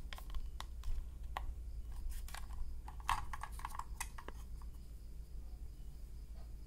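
Plastic battery-compartment cover of an Aiwa RS-44 pocket radio being pressed and slid open by hand: a scattering of small plastic clicks, then a quick run of clicks and scrapes about two to four seconds in.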